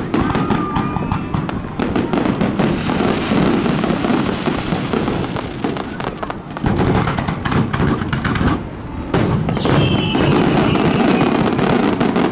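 Aerial firework shells bursting in a continuous barrage: many overlapping sharp bangs and crackles over a dense rumble. A brief falling whistle comes about ten seconds in.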